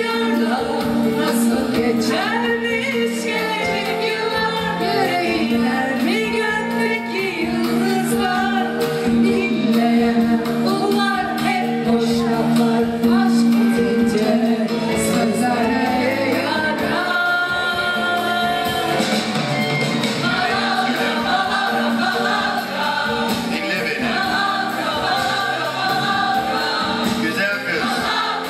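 Live song: soloists singing into microphones over musical accompaniment, with a choir behind them.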